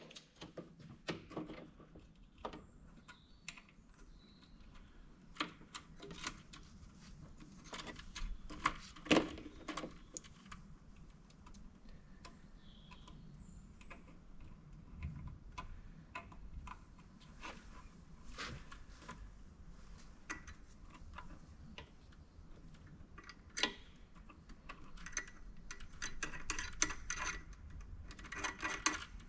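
Hand tools and metal parts clicking and knocking as parts are fitted to an engine: irregular sharp clicks, with a quicker run of ticks near the end.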